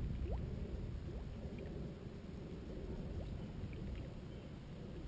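Rebel Pop-R topwater popper being twitched across a pond, making faint pops and small splashes on the water, under a steady low rumble.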